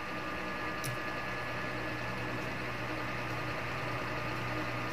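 Steady low mechanical hum with a faint high whine, with one faint click about a second in.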